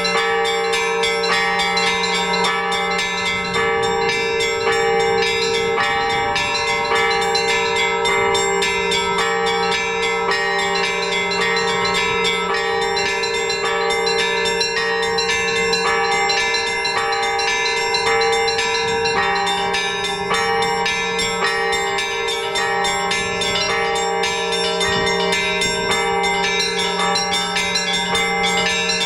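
Orthodox church bells being rung by hand from a belfry: small bells struck in a quick, steady rhythm over the lasting hum of larger, lower bells.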